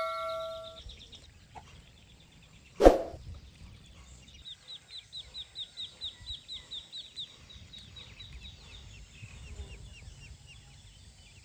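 Farm poultry calling: one loud short call about three seconds in, then a run of quick high chirps, about five a second, that goes on for several seconds and thins out near the end. A struck bell's ringing dies away at the very start.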